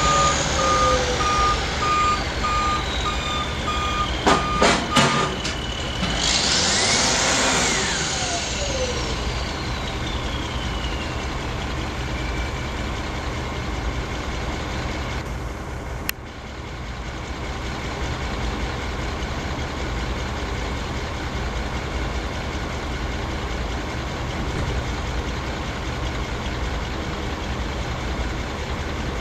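Diesel shunt truck (terminal tractor) reversing with a baggage trailer. Its reversing alarm beeps steadily over the engine for about the first five seconds, followed by a few sharp knocks and a hiss like an air-brake release. The engine then settles into a steady idle, with a whine falling in pitch.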